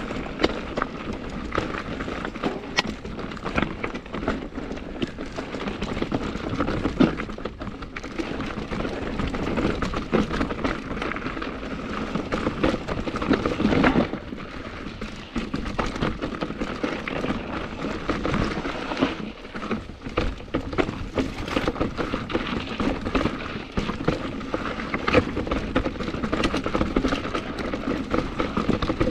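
Santa Cruz mountain bike ridden down a rough rock trail: continuous tyre noise over the rock, with frequent irregular knocks and rattles from the chain and frame as it hits the bumps.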